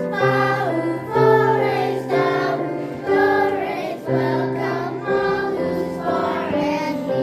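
A choir, with children's voices, singing a slow song in long held chords over a steady sustained bass note, its phrases swelling about once a second.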